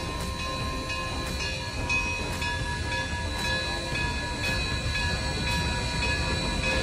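Bell of a Durango & Silverton narrow-gauge steam locomotive ringing steadily, struck about once a second with its tones hanging between strokes, over a low rumble from the locomotive moving in the yard.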